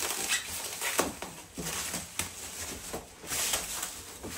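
Packaging rustling and crinkling with scattered light knocks and clicks as a sliding door is unwrapped and handled.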